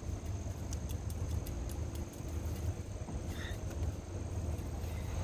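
Quiet outdoor background: a steady low rumble with a faint, steady high-pitched hum over it and a few light ticks.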